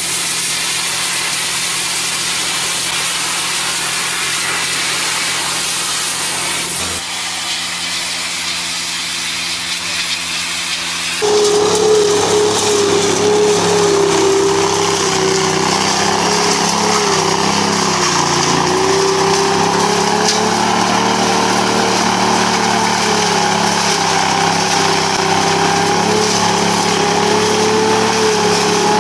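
Pressure-washer spray hissing, then about eleven seconds in a truck-mounted leaf vacuum starts up loud, its engine and suction fan running with a strong steady hum that wavers slightly in pitch.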